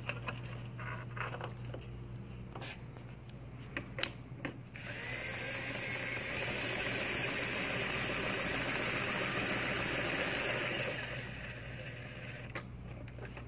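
DeWalt cordless drill/driver running steadily for about six seconds from about five seconds in, driving a screw through the access point's plastic mounting ring into the ceiling tile. Before it, a few sharp clicks of handling.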